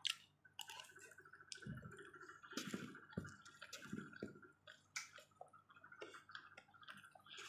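Close-up chewing of a mouthful of rice: faint, wet mouth clicks and soft squishes, many times over.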